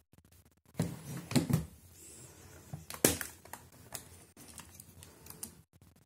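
Clicks and knocks from handling a Canon T90 35mm SLR camera, with a cluster of knocks about a second in and one sharp click about three seconds in.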